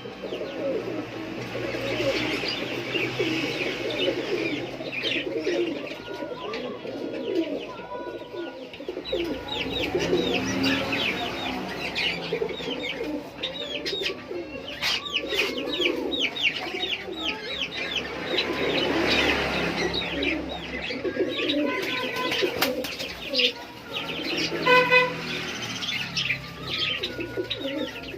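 Many caged pigeons cooing together with a constant chatter of small birds' rapid chirps, a busy bird-shop chorus with no pause.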